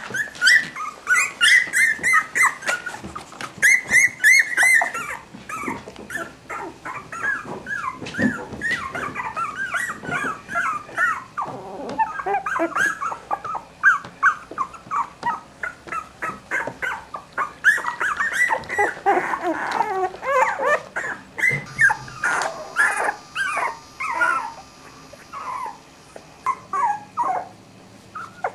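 Three-week-old Cavalier King Charles Spaniel puppies whimpering, many short high-pitched cries in quick succession with brief pauses.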